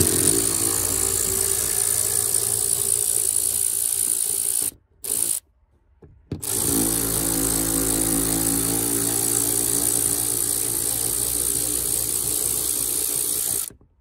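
Cordless electric ratchet running as it backs out the bolts of a roof grab handle: a run of about four and a half seconds, a short blip, then after a pause a second run of about seven seconds.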